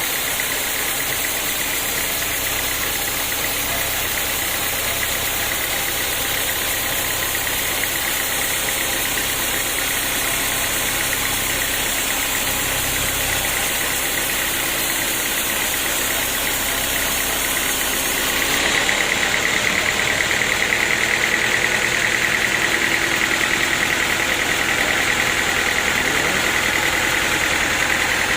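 Sawmill machinery running steadily, an engine with a continuous mechanical hum. About two-thirds of the way through, the sound gets a little louder and a high whine comes up.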